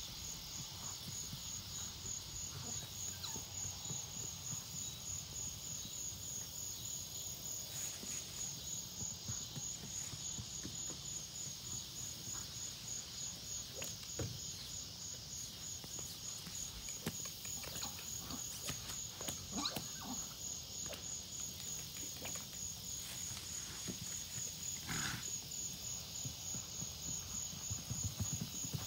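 Insects chirping steadily in a fast, even pulse of about two chirps a second, with scattered soft thuds of a miniature horse's hooves on grass as it canters. A brief louder sound comes about 25 seconds in.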